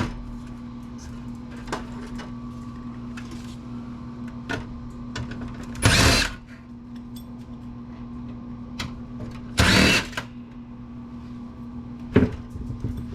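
Power driver run in two short bursts, each about half a second, backing out screws from a computer case, with light clicks and knocks of metal parts being handled between them.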